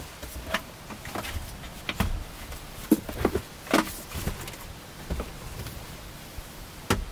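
Irregular knocks, clicks and rustles as a portable power station and its cable are handled, lifted and set down on a car's folded rear seats.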